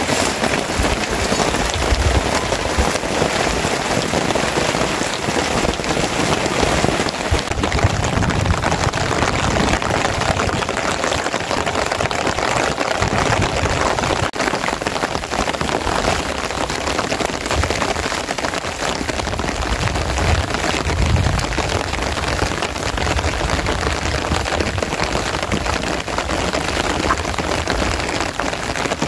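Steady rain falling, an even, dense patter with no letup.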